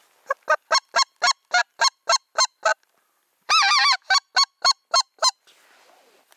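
Goose call blown by a hunter, giving a steady run of about ten short honks, then a brief warbling roll just past halfway, then five more honks.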